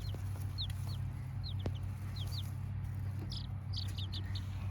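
Baby chicks peeping: a string of short, high cheeps, each falling in pitch, coming irregularly several times a second over a steady low hum.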